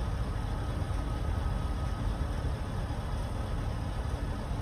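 Steady low rumble of a vehicle engine idling.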